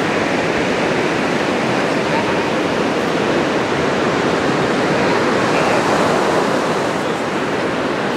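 Ocean waves breaking: a steady wash of surf noise.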